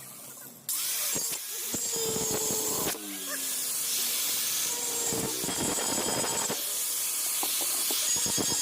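Steady, dense hissing with irregular scraping strokes from hand-tool work on the cutter, changing abruptly several times.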